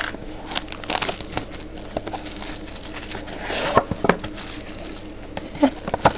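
Plastic wrapping crinkling and tearing as a sealed box of baseball cards is unwrapped, with scattered small clicks and taps from handling the box.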